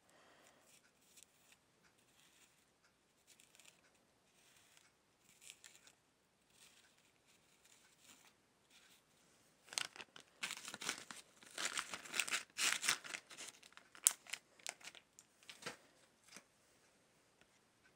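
Clear plastic bag crinkling and rustling as it is handled. A few faint rustles at first, then a dense run of loud crackling from about ten to fifteen seconds in, with one sharp click among it.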